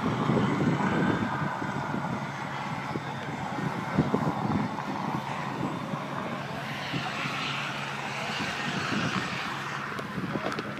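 Propeller aircraft's piston engine droning steadily.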